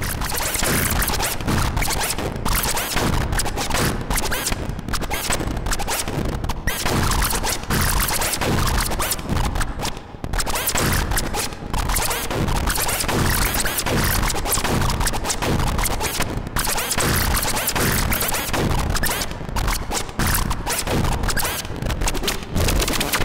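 bpd eurorack complex sound generator, its three cross-modulated oscillators making a dense, choppy noise texture that keeps changing in tone and grain as it is driven by a complex envelope and its knobs are turned, heard through an Erbe-Verb reverb. It drops out briefly twice about ten and eleven and a half seconds in.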